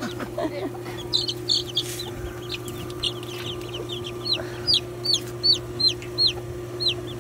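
Baby ducklings and chicks peeping: a run of short, high, shrill peeps that slide downward, coming about two or three a second and growing louder in the second half, over a steady low hum.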